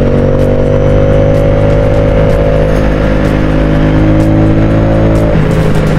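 Ducati Streetfighter V4's 1103 cc V4 engine accelerating hard in fourth, a gear a little too high, its pitch climbing steadily for about five seconds and then dropping suddenly as it comes off the throttle.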